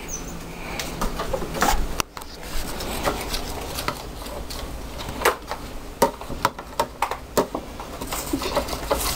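A metal spoon stirring Jello mix into water in a plastic container, with irregular clicks and knocks as it taps and scrapes the sides.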